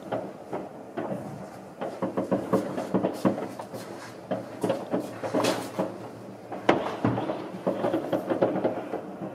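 Many New Year's fireworks going off at once: a dense, irregular crackle of bangs from aerial shells, rockets and firecrackers, with the loudest bang near seven seconds in.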